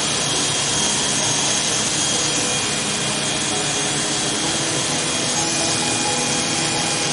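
Electric hair clippers running steadily, buzzing as they cut short hair close around the ear.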